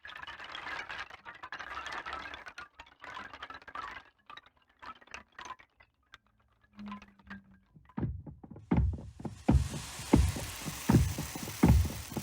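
Electronic soundscape: a dense crackle of clicks, thinning to scattered ticks and a brief low tone, then deep thumps at an uneven pace over a hiss from about eight seconds in.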